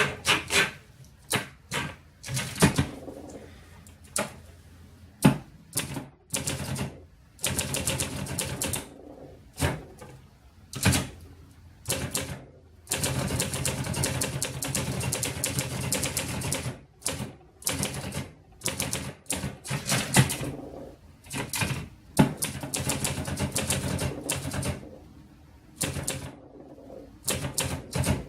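A 1972 Underwood 450 portable manual typewriter, an Olivetti design, being typed on: irregular keystrokes come in runs of fast strikes separated by short pauses. It rattles a bit as it types, which the owner puts down to the machine not having been adjusted yet.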